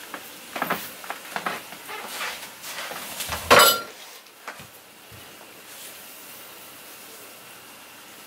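Close handling noise: a quick run of clicks, knocks and clinks as someone settles in right by the microphone, with the loudest thump about three and a half seconds in. After that only a steady faint hiss remains.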